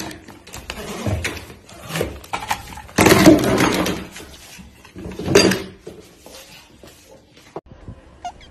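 Plastic broom and dustpan clattering and scraping on a tiled floor as a cat grabs and wrestles with them, in a run of knocks and scrapes. A few short repeated chirps start near the end.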